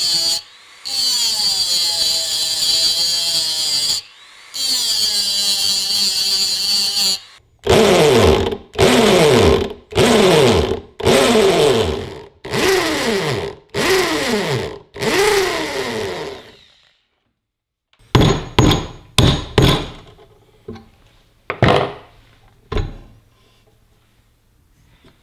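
A high-speed rotary tool with a small abrasive cutting disc runs with a steady high whine, cutting into the peened end of a crank-handle pin, and stops briefly twice. A drill then runs in seven short bursts as it bores into the pin, its pitch falling each time it winds down. A few sharp metal clicks and knocks follow near the end.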